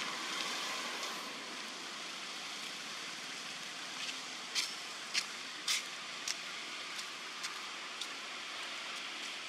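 Steady hiss of forest background noise, with a run of short, sharp clicks, about two a second, from about four seconds in to about eight seconds in.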